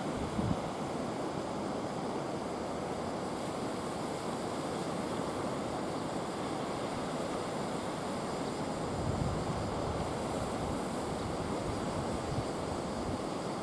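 Sea waves washing in steadily: a slightly rough swell raised by Typhoon No. 5. Wind buffets the microphone now and then, most strongly about nine seconds in.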